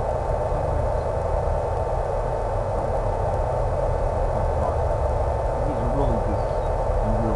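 Steady hiss with a constant high tone from an RC plane's onboard audio in flight: the E-flite Power 10 brushless motor and 11x7 propeller running at cruise, heard over the FPV video link.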